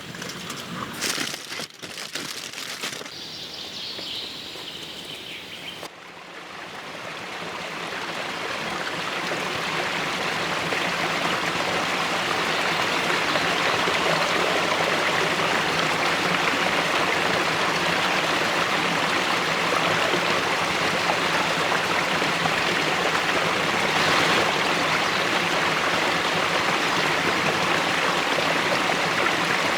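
Steady rush of running water, like a forest stream, fading in about six seconds in and then holding level. Before it, a few sharp clicks and a faint high whistle.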